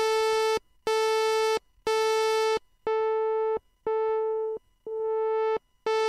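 Steinberg Prologue software synthesizer playing a sawtooth-wave note, repeated about once a second at the same pitch. Its low-pass filter cutoff is swept down and back up, so the middle notes turn duller as their bright upper harmonics drop away, and the last note is bright again.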